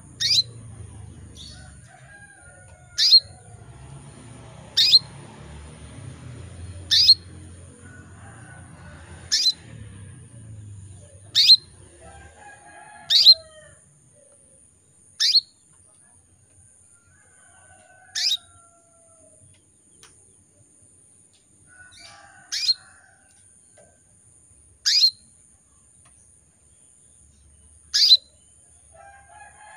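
Female canary calling to a male, as a hen in breeding condition does: about a dozen single sharp downward-sweeping call notes, each brief, spaced two to four seconds apart.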